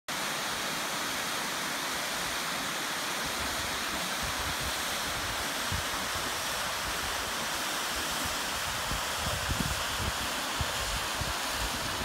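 Small mountain waterfall spilling over limestone ledges into a rocky stream: a steady rush of falling water. Low, uneven rumbles come in over the last few seconds.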